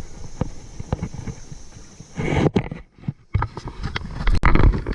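Kayak being paddled: water splashing and the knock of the paddle against the hull. It gets louder about two seconds in, with a short gap of near silence just after.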